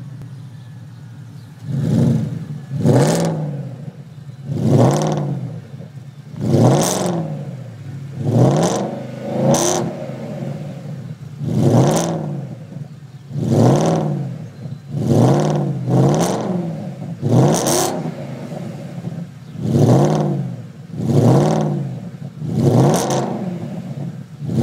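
Porsche Panamera S 4.8-litre V8 through a custom sports exhaust, revved in short blips over and over. After a moment at idle there are about fourteen quick revs, each rising and falling back, roughly one every second or two.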